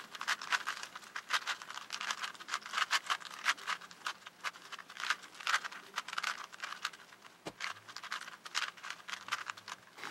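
Rubik's Cube being scrambled by hand, its plastic layers clicking and rattling in quick, irregular twists.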